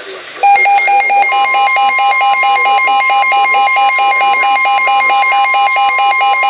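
NOAA Weather Radio receivers sounding a warning alert, signalling a newly issued severe thunderstorm warning. Rapid loud electronic beeping, about four to five beeps a second, starts about half a second in. About a second in it is joined by the steady high warning alarm tone broadcast by the station.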